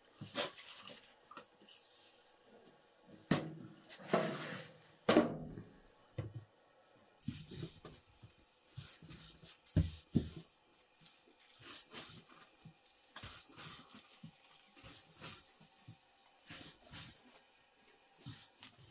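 Scattered soft taps, knocks and rustles of a long, thin wooden rolling pin working a large sheet of thin flatbread dough on a cloth, with a few louder knocks.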